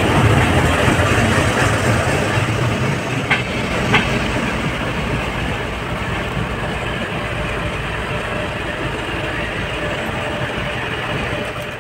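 Express train with LHB coaches running on the rails: a steady rumble that slowly gets quieter, with two sharp clicks about three and four seconds in.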